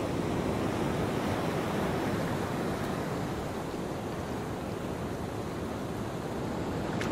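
Ocean surf ambience: a steady wash of waves.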